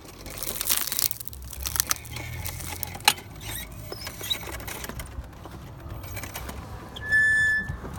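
Drinking glasses cracking and crunching under a quad bike's tyre: dense crackling and sharp snaps over the first three seconds, over a low motor hum. Near the end a loud, high beep lasts about half a second.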